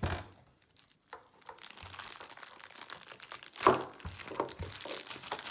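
Thin plastic toy bag crinkling as it is handled and pulled open, with a louder crackle about three and a half seconds in. A short knock at the very start.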